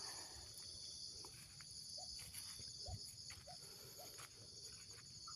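Quiet, steady high-pitched chorus of insects such as crickets, with a few faint short chirps from about two seconds in.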